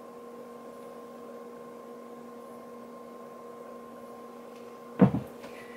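Steady electrical hum, a low buzzing tone. A single sharp knock about five seconds in.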